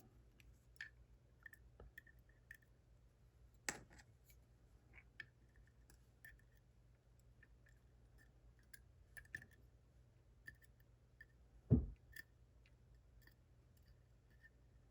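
Faint, irregular small metallic clicks and ticks from handling the parts of a gutted 10-pin padlock, with one sharper click about four seconds in and a dull thump near the end.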